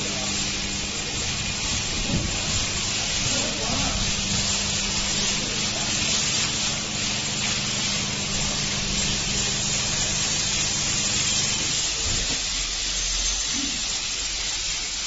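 High-pressure water spraying from the overhead arm of a CH-200 touchless car wash onto a car, a steady hiss, over a steady machine hum that stops about twelve seconds in.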